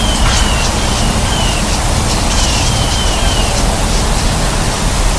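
Loud wind noise buffeting the microphone, with a bird's short, high, downward-sliding chirps repeated several times in the first three seconds.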